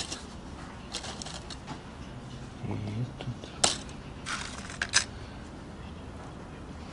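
Small items being handled and sorted: light rustling with a few sharp clicks, the sharpest about three and a half and five seconds in.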